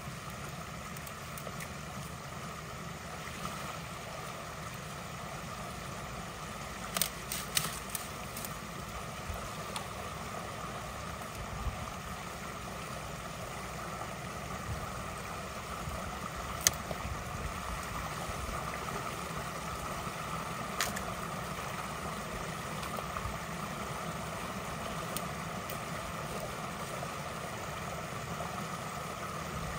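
Creek water running steadily, with a cluster of sharp knocks about seven to eight seconds in and two single knocks later.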